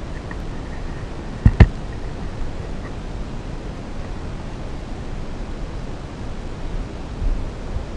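Steady hiss from a small camera's microphone, with two sharp knocks close together about a second and a half in as the camera is carried and bumped.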